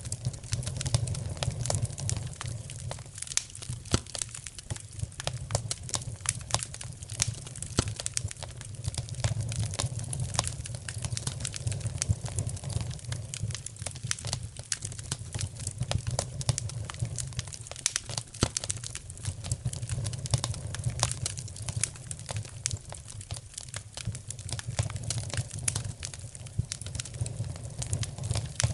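Wood fire crackling in a fireplace: frequent sharp pops and snaps over a low, steady rumble of the flames.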